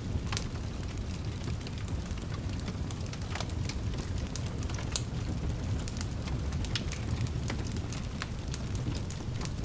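Wood fire burning in a fireplace, with a steady low rumble of flames and frequent sharp, irregular crackles and pops.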